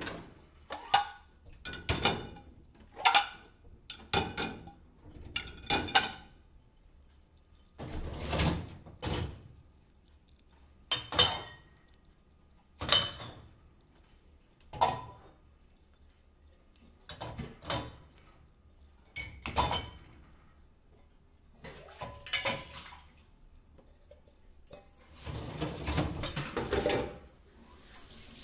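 A string of separate knocks and clinks, each ringing briefly: several a second at first, then more sparsely with gaps of a second or two, and a longer clattering stretch near the end.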